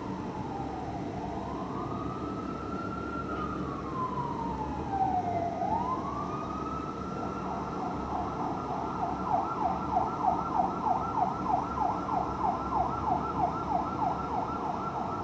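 Fire engine siren, first wailing in slow rising and falling sweeps, then switching about nine seconds in to a fast yelp of about five sweeps a second, as the engine runs Code 3 to a call.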